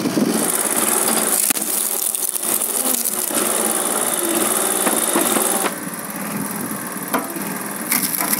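Small petrol engine of a SuperSplit log splitter running while rounds of wood are split, with several sharp cracks and splintering as the wood gives way. It becomes somewhat quieter a little over halfway through.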